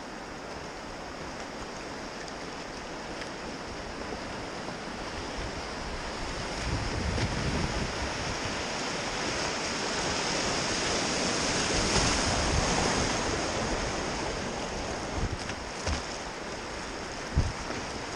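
River water rushing past a kayak, getting louder as the boat runs through a rapid of white water near the middle. A few sharp splashes follow near the end.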